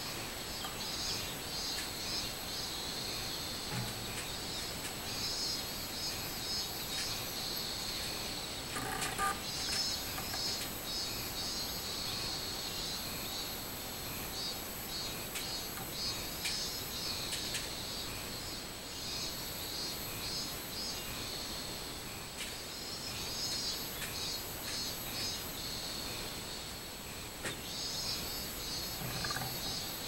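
Robust cicadas (minmin-zemi) singing: a pulsing high buzz that swells in repeated bouts every few seconds.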